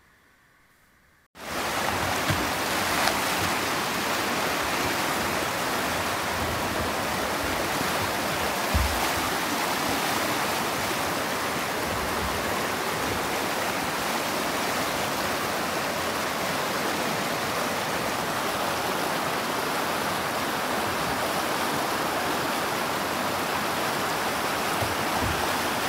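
Rushing whitewater of river rapids and a weir: a steady, even rush of water that cuts in abruptly about a second and a half in, with a few faint low thumps underneath.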